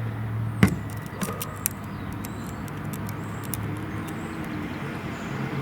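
Steady low hum of an idling motor vehicle. A sharp knock comes just over half a second in, followed by a few fainter clicks.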